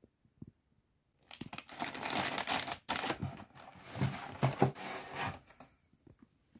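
Crinkling of sealed LEGO Minifigures foil blind bags as one is pushed back into the cardboard display box among the others, with a few soft knocks against the box. It starts about a second in and dies away near the end.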